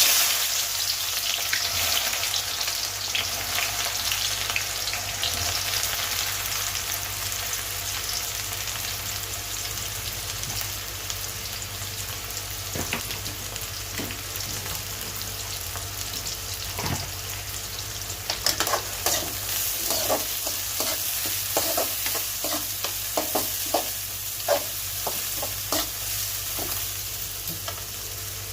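Food frying in hot oil in a pan, the sizzle starting suddenly as it goes in and easing gradually. In the second half a spoon or spatula knocks and scrapes against the pan in quick strokes as the food is stirred.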